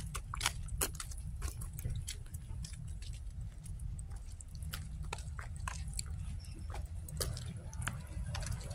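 Handling and walking noise on a handheld camera microphone: a steady low rumble with many irregular sharp crackles and clicks.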